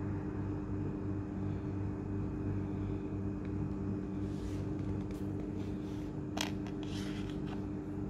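A steady low mechanical hum made of several fixed tones, as from a running appliance or motor. From about halfway through, a few short clicks and rustles sound, as of a phone being handled.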